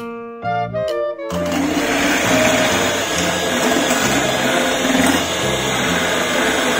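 Electric hand mixer starting up about a second in and then running steadily, its beaters whisking a condensed-milk mixture in a glass bowl, over background music.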